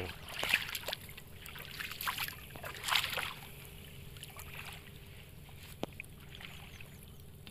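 Light clicks and crackles from a small wood cooking fire as thin split sticks are pushed in and rearranged, over a steady background hiss. A single sharp tick comes about six seconds in.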